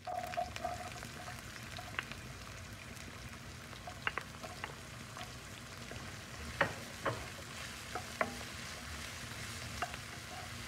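Diced white onions sizzling in hot oil in a nonstick pan, a steady frying hiss, while a wooden spatula stirs them and knocks against the pan with several sharp taps.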